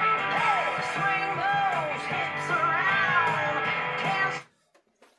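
Rock and roll song with guitar and a singing voice, cutting off about four seconds in; near silence follows.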